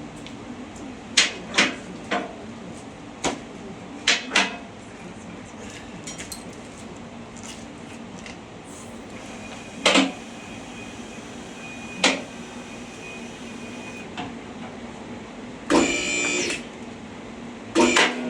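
Hand tools clicking and clanking against metal while a Jeep Wrangler TJ's upper shock absorber bolt is worked loose: scattered sharp knocks, several in the first few seconds and single ones later, with a longer rattling burst near the end.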